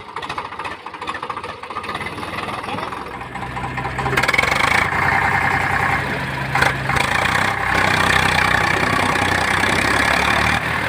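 Eicher 485 tractor's diesel engine running, rising to higher revs about four seconds in and holding there, working under load as it tows a loaded trolley through mud.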